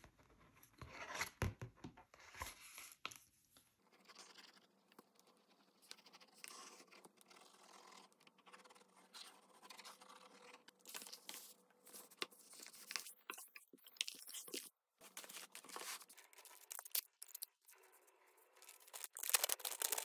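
Paper being handled by hand: irregular tearing, scraping and rustling strokes, with the loudest burst of them near the end.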